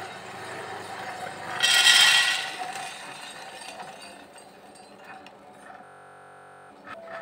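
Roasted coffee beans pouring out of a sample roaster's drum into its metal cooling tray: a loud rattling rush of beans about two seconds in, over the steady mechanical running of the roaster.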